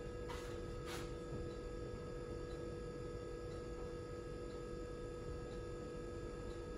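Quiet kitchen room tone: a steady electrical hum, with a wall clock ticking faintly about once a second. Two light clicks come in the first second.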